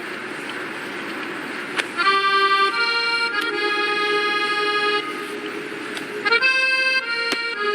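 A steady rushing noise, then about two seconds in, background music starts: loud held chords that change every second or so.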